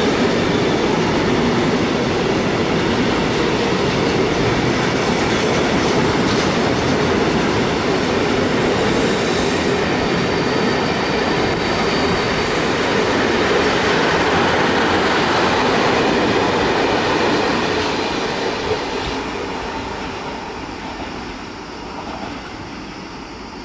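Loaded intermodal freight train passing close by: container and swap-body wagons rolling over the rails with a loud, steady rumble and wheel noise. The noise fades from about 18 seconds in as the tail of the train draws away.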